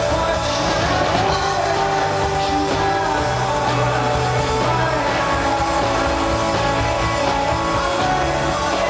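Rock band playing live: electric guitars, bass and drums under a sung lead vocal, recorded in the concert crowd.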